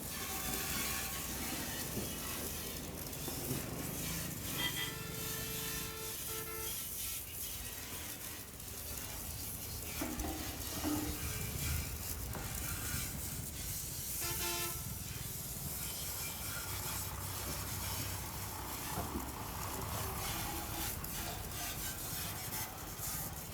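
Steady engine and traffic noise, with a few short, pitched horn-like tones.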